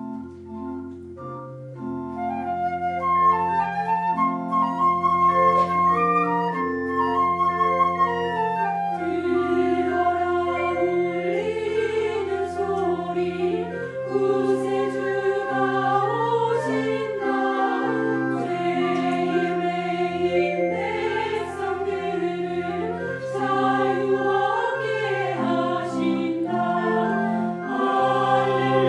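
Church choir singing a Christmas anthem with keyboard accompaniment. Held keyboard chords with a melody above open it, and the choir comes in about nine seconds in.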